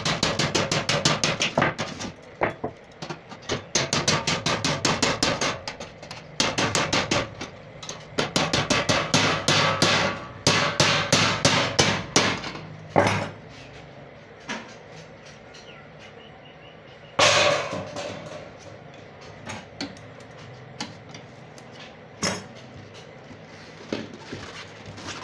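A hammer rapidly tapping a blade through the thin metal lid of a sealed tin to cut it open, in runs of several blows a second separated by short pauses. Later the blows become fewer and more spaced out, with a loud burst about two-thirds of the way in.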